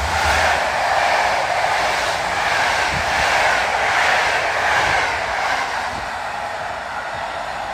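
PKP Intercity passenger coaches rolling past at speed behind an EP07 electric locomotive: a loud, steady rush of steel wheels on the rails, easing off as the last coach goes by near the end.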